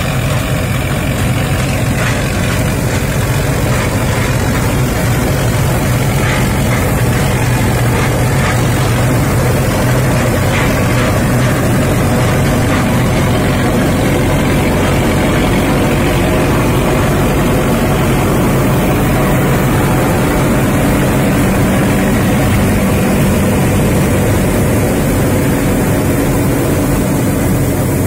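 Diesel engine of a Sonalika tractor running under load as it drives a Panesar TMC 800 tractor-mounted mini combine harvester cutting and threshing wheat: a loud, steady drone.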